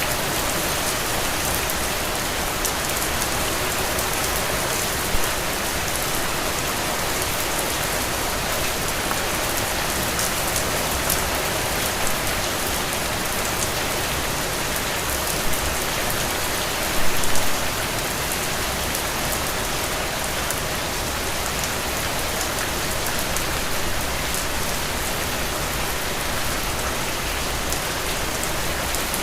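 Steady heavy rain falling on a surface, a dense hiss with individual drops pattering through it. A few short, louder taps stand out, the biggest a little past the middle.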